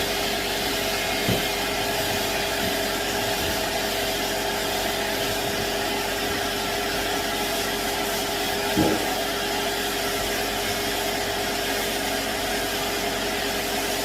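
A vacuum running steadily for dust-free drywall sanding, with a steady hum over its rushing noise and a couple of brief knocks, one about a second in and one near nine seconds in.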